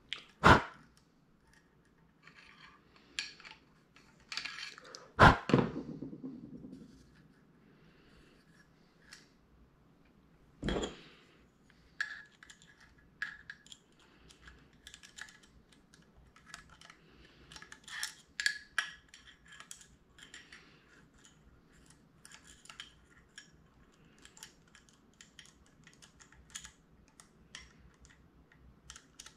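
Metal carburetor body and small parts being handled on a tabletop: a few sharp knocks as the body is set down and turned, about half a second in, about five seconds in and near eleven seconds, then a run of light clicks and scrapes as a screwdriver works a screw into the carburetor.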